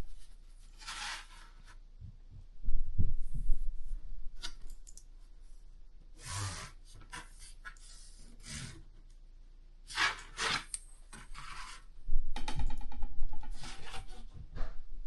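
A pen drawing lines on cardboard in separate short scratchy strokes, with louder bumps of the cardboard being handled about three seconds in and again near the end.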